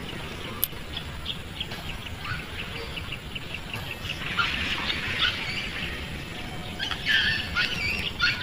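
Birds calling outdoors: a rapid, even run of short chirps in the first few seconds, then louder scattered calls later, over a low steady rumble.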